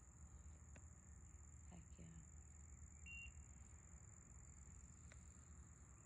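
Near silence: faint room tone with a steady high-pitched whine and a low hum.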